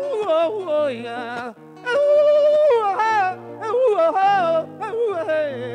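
Singing of a torrente in joropo venezolano style: one voice draws out a long, wavering melismatic line, with a held note about two seconds in, over plucked guitar accompaniment.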